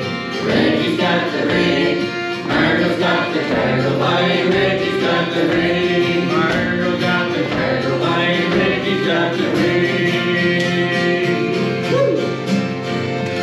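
A live country-style song: several voices singing together over an acoustic guitar and an accordion, with a steady beat.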